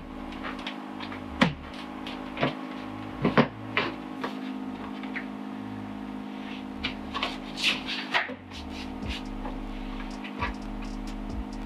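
Jeep Wrangler JK's plastic inner door trim panel being pressed back onto the door: scattered clicks and knocks as its push-in retaining clips snap into the door, over a steady background hum.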